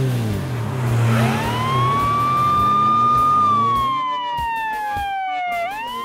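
Emergency vehicle siren wailing: it rises about a second in, holds a long high note, then slowly falls and starts rising again near the end. A low engine rumble runs under it and fades out around four seconds in.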